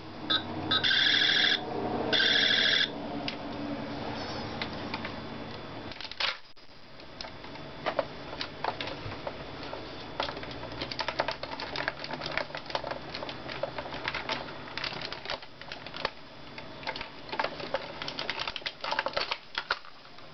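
Talking Buzz Lightyear action figure: two short, loud electronic sound effects from its built-in speaker in the first few seconds, then a long irregular run of sharp plastic clicks as its wings and joints are worked by hand.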